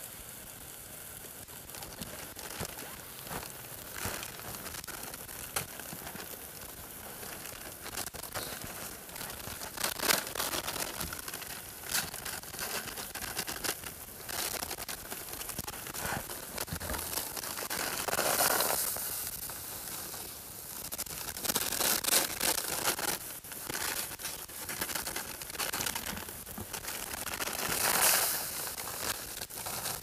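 Plastic packet crinkling and tearing as it is handled, in irregular rustling bursts, loudest about two-thirds of the way in and near the end.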